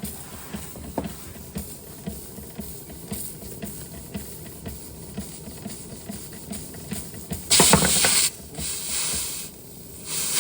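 Josef Falk 456/1S toy steam engine running, with a steady chuffing of about three puffs a second. About seven and a half seconds in, steam begins hissing out loudly in bursts, stopping and starting again near the end. The hissing is steam escaping past the safety valve, whose weight has come off.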